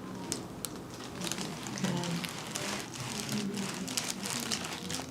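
Soft rustling and crinkling with scattered small clicks as hands work a patient's neck on a chiropractic treatment table.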